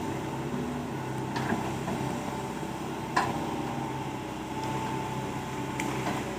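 Excavator's diesel engine running at a steady speed, with a few short clicks or knocks, the sharpest about three seconds in.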